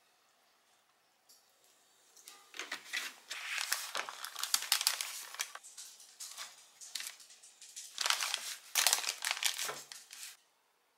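A crusty filled bread loaf being torn apart by hand, its crust crackling and the kraft paper wrapper around it rustling. The crackling starts about two seconds in, comes in several spells, and stops shortly before the end.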